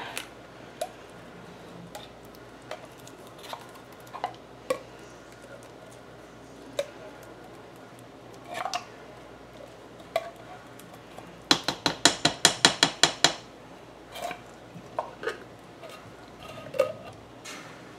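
Condensed soup being emptied from a tin can into a slow cooker's crock: scattered light clinks and soft plops. About two-thirds of the way through comes a quick run of about a dozen sharp knocks, some seven a second, as the can is knocked to free the last of the soup.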